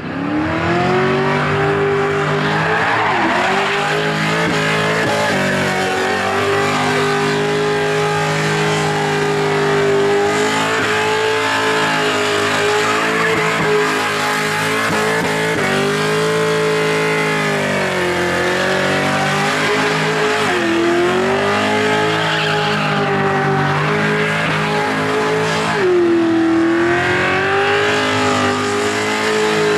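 V8 Holden Commodore doing a burnout: the engine is held at high revs with its rear tyres spinning and screeching. The revs dip briefly and come straight back up a few times, most deeply near the end.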